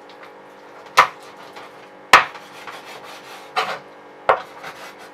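Knife chopping through a chicken's breastbone to split the breast in two: four sharp knocks about a second apart, the first two the loudest.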